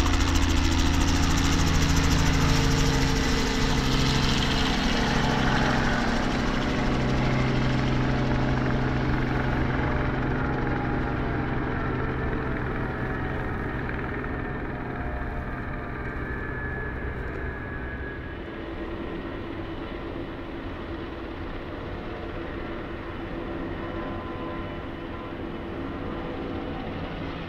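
Robinson R44 helicopter flying past and climbing away, its rotor and piston engine running steadily. The sound fades over the first two-thirds, leaving a quieter hum.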